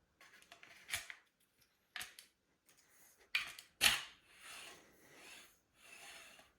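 Hand assembly of the CNC machine's parts: several sharp clicks and knocks, the loudest a little before the four-second mark, followed by three short rubbing or scraping sounds.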